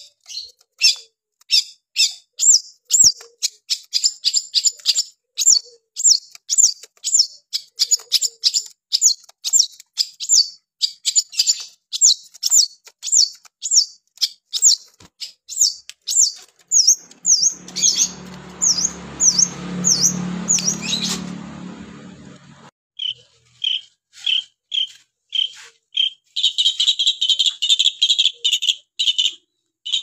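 Caged long-tailed shrike singing: a long run of sharp, high repeated notes, about three a second, with a few falling notes past the middle. Near the end the notes turn lower into a dense, rapid chatter. For a few seconds past the middle, a low hum rises and fades beneath the song.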